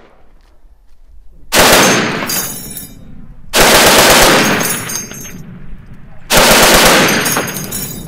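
Browning M2HB heavy machine gun firing .50 BMG in three short full-auto bursts, two to three seconds apart. Each burst is followed by a rolling echo that fades over about a second.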